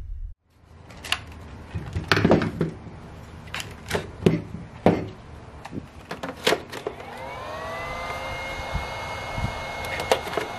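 Plastic clicks and knocks of a cordless power-tool battery pack being handled and seated onto its charger. About seven seconds in, a whine rises in pitch and then holds steady, the charger starting up once the battery is in.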